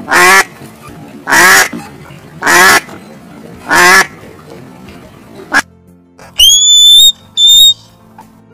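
Duck quacking: four loud quacks about a second apart. These are followed near the end by two short, high-pitched squeaky calls.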